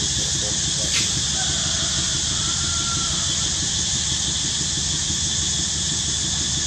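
Steady high-pitched insect drone, typical of a cicada chorus, holding even throughout, with a single faint click about a second in.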